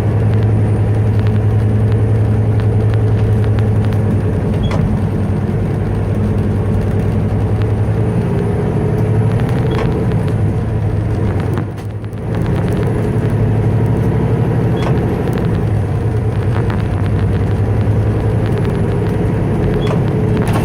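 Truck engine and road noise heard from inside the cab while driving, a steady low drone that dips briefly about twelve seconds in.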